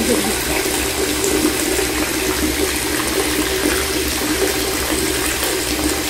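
Water running steadily into a bathtub from the tap.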